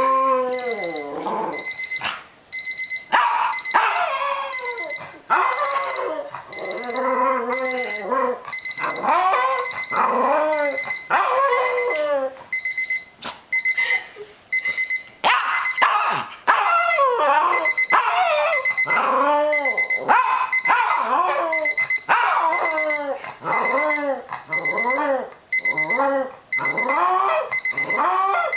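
Electronic alarm clock beeping fast and steadily while a dog howls along to it in short calls that rise and fall in pitch, about one a second. The dog stops for a couple of seconds about halfway through and then starts again. The howling is the dog's habitual response to this alarm's ring.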